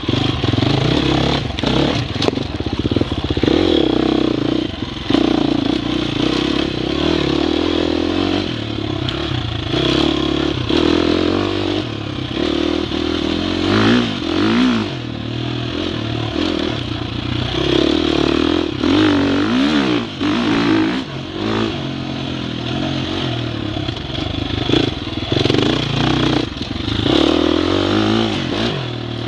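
Dirt bike engine revving up and falling back again and again as it is ridden slowly over rough, rocky trail, with the bike knocking and rattling over the bumps.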